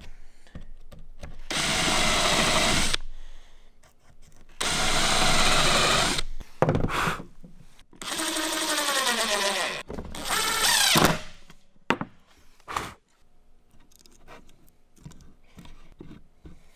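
Power drill boring into pine in two short bursts, then running longer to drive a screw into the hole, its whine climbing as it finishes. A few light knocks follow.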